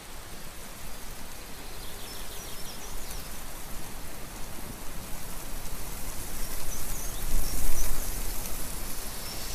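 Steady rushing outdoor ambient noise that slowly grows louder, with a swell near the end and a few faint high chirps.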